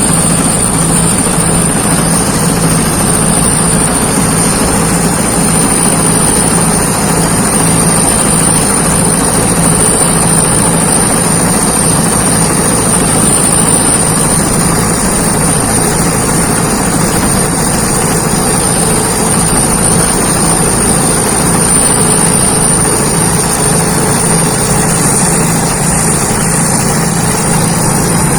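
Rice combine harvester running steadily under load, its engine and threshing machinery giving a continuous mechanical drone with a steady high-pitched whine above it.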